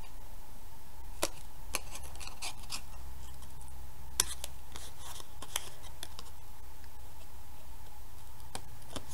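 Small scissors snipping slits into black cardstock: short, crisp snips at irregular intervals, the sharpest about four seconds in.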